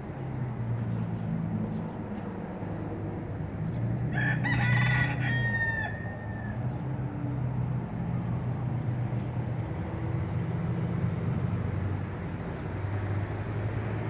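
A rooster crowing once about four seconds in, the call lasting about two seconds with its last note trailing downward, over a steady low hum.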